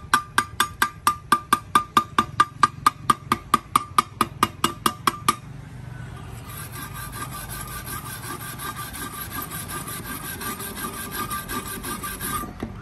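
Chipping hammer rapping a fresh stick-weld bead on thin sheet steel to knock the slag off, with quick sharp taps about five a second and a light metallic ring. After about five seconds the taps stop and give way to a steady scratchy scrubbing, the tool's wire brush scouring the bead clean.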